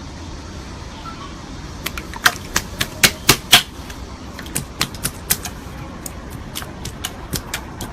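Slime being worked by hand, giving off irregular sharp pops and clicks over a steady hiss, thickest from about two to four seconds in.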